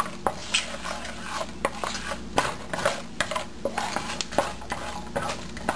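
Wooden spatula scraping and tapping on a nonstick frying pan, stirring whole spices and dried red chilies roasting in a little oil: irregular clicks, a few a second.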